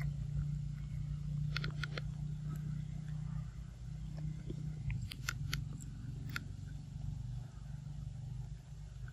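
A steady low hum, with a few short sharp clicks about a second and a half in and again around five to six seconds in.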